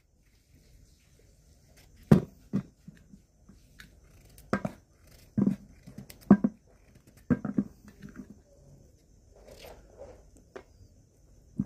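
Pumpkin pieces being cut and dropped into a steel pot of chopped banana stem and brinjal: irregular knocks and soft thuds.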